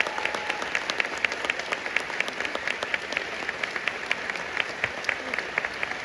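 Audience applauding, many separate hand claps over a steady wash of clapping. A last held band note dies away just after the start.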